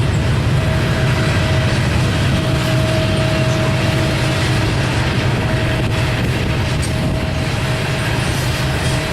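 Norfolk Southern freight train rolling past at speed: a loud, steady rumble of wheels on rail with a thin steady whine above it and a few faint clicks.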